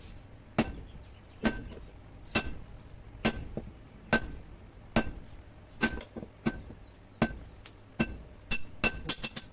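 Hand-hammer blows on red-hot truck leaf-spring steel on a small anvil, forging a blade. Each strike gives a sharp clank with a brief metallic ring. The blows come about once a second and quicken to several a second near the end.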